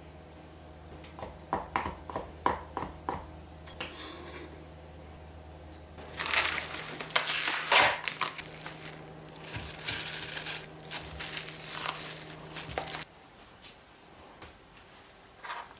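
Kitchen prep sounds: a knife clicking in short strokes as it trims the stems from shiitake mushrooms, then several seconds of crinkling plastic packaging and knocks against a glass mixing bowl as ground pork is unwrapped and put in.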